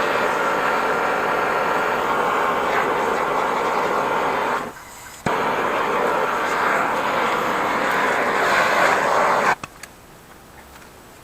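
Handheld gas blowtorch burning with a steady hiss, heating a rust-frozen post vise. It cuts out for under a second about four and a half seconds in, comes back abruptly, and shuts off a couple of seconds before the end.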